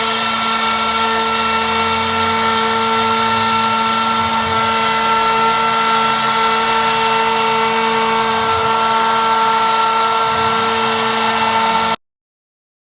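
CNC router spindle running at speed and milling HPL-faced plywood: a steady, loud whine with several fixed tones over cutting hiss. It cuts off abruptly near the end.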